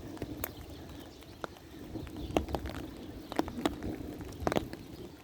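Scattered sharp taps and knocks, irregularly spaced, over a steady low rumble of storm wind.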